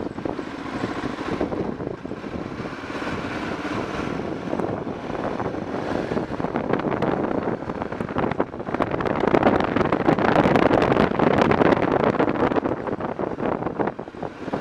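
BMW F650 motorcycle under way on the road, its engine running under a steady rush of wind over the microphone. The sound swells louder from about nine seconds in until around twelve and a half seconds.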